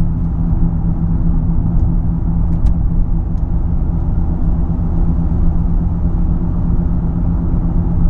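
Inside the cabin of a 2012 Ford Fusion SEL at about 60 mph: steady road rumble with a constant low hum, which the owner cannot place as coming from the front or the rear.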